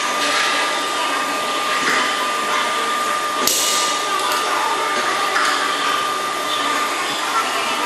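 Steady whirring machine noise with a constant high-pitched hum, and a sharp click about three and a half seconds in.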